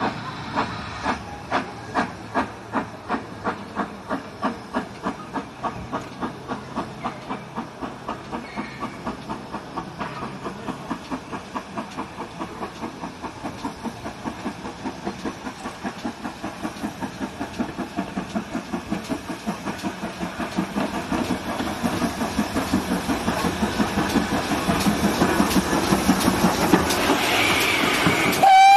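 GWR 5600 class 0-6-2 tank locomotive No. 5643 working under steam: its exhaust chuffs in an even beat with steam hiss, the beat quickening and growing louder as the engine comes close and passes.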